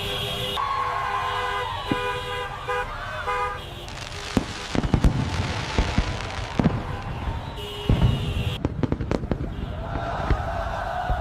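Fireworks going off in a rapid string of sharp bangs and crackles from about four seconds in, after steady tooting tones at the start.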